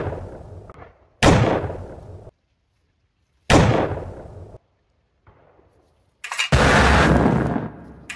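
Three gunshots in the distance, each sharp crack trailing off in a long echo over about a second, coming roughly two seconds apart. About six seconds in, a loud continuous noise starts.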